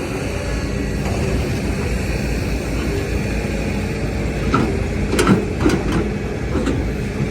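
Diesel engines of an excavator and dump trucks running steadily, with a run of sharp knocks in the second half.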